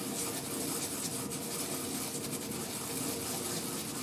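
A hand brush scrubbing steadily back and forth over a KA24DE piston, rubbing off grime to read the number stamped on it.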